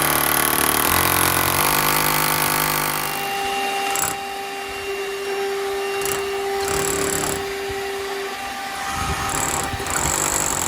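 Power drill boring a hole at an angle down into brick, its motor running continuously under load, the pitch shifting a few times as the bit works.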